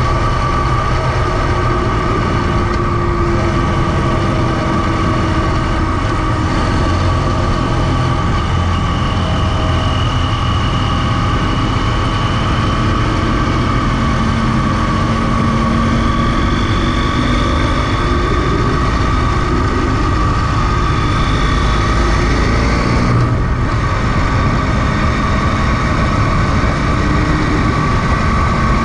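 Onboard sound of a motorcycle riding at steady speed: its engine running continuously, the note drifting slowly up and down with throttle, under a constant rush of wind noise on the microphone.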